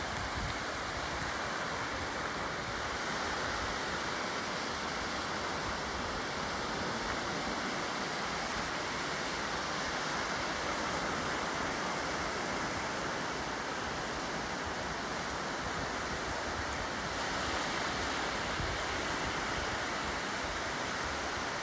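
Ocean surf washing on a beach: a steady, even hiss with little rise and fall.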